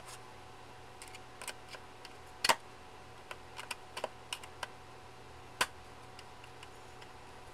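Wooden two-part antenna jig being handled and fitted back together: scattered small clicks and taps, with two louder knocks about two and a half and five and a half seconds in.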